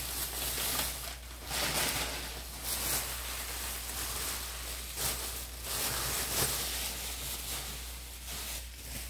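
Packaging rustling and crinkling in irregular surges as items are worked out of it by hand.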